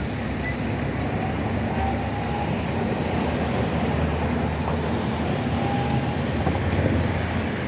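Electric low-floor tram running along street tracks amid steady city traffic noise, a continuous rumble that grows slightly stronger partway through.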